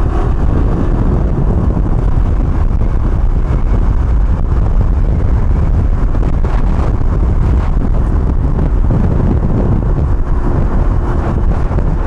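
G-Moto Cross X PRO moped's 125 cc fuel-injected engine running while riding along, heavily buffeted by wind on the microphone.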